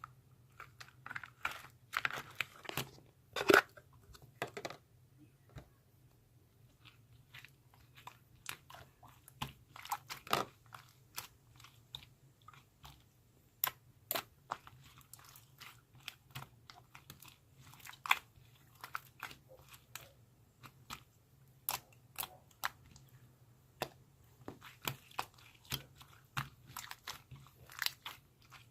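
Slime being squished and pressed by hand, giving irregular sticky clicks, pops and crackles.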